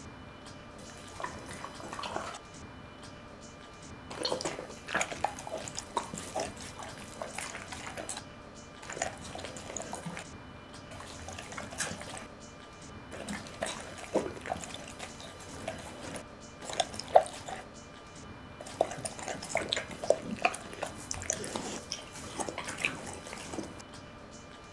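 Pit bull terrier eating raw meat: irregular wet chewing, smacking and slurping sounds.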